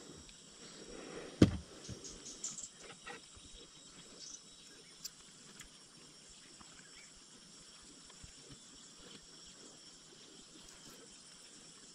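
Quiet riverside ambience with a faint, steady high insect drone, broken by one sharp knock about a second and a half in and a scatter of small handling clicks over the next few seconds.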